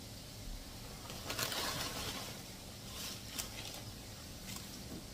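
Crushed corn chips pouring from a crinkly chip bag into a bowl, in a few rustling bursts, the biggest about a second and a half in.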